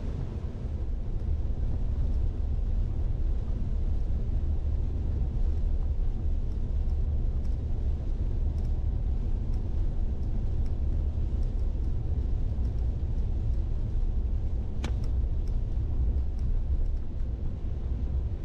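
Steady low rumble with scattered faint ticks, and one sharp click about fifteen seconds in.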